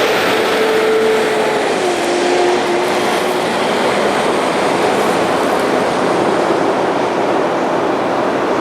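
Heavy trucks going past on the highway: a loud, steady rumble of tyres and engines, with an engine tone that drops in pitch about two seconds in and then fades.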